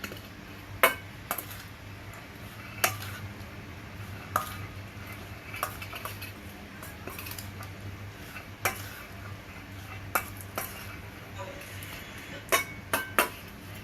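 Metal utensil clinking and scraping against cookware while food is stirred, in irregular sharp clinks with a quick run of three near the end, over a steady low hum.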